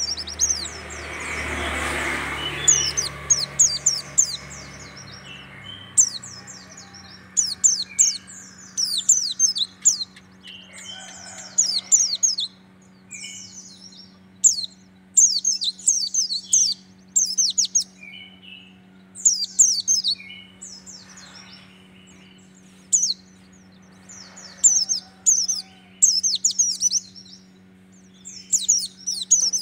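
Caged white-eye (pleci) singing its rapid-fire 'tembakan' song: short bursts of fast, high, falling twitters, repeated every second or two. A steady low hum runs underneath, and a broad swell of noise rises and fades in the first few seconds.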